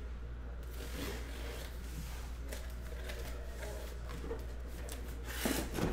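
Cardboard case flaps being handled and pulled open: faint rustling of cardboard over a steady low hum, with a louder scrape or rustle near the end.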